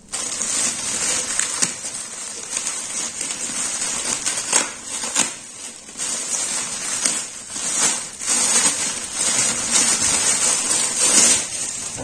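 Clear plastic packaging crinkling and crackling as it is handled and pulled open, with sharp crackles throughout and a few louder ones.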